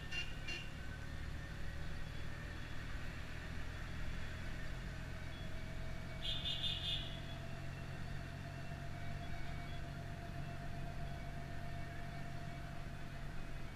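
Taxi engine and road noise heard from inside the cabin, a steady low rumble. A short burst of rapid horn beeps comes about six seconds in.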